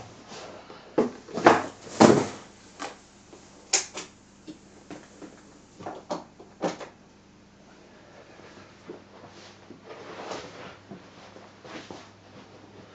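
Handling of a plastic-topped LED aquarium light bar and its power cable on a wooden table: a run of knocks and clacks, the loudest about two seconds in, growing sparser and softer after about seven seconds.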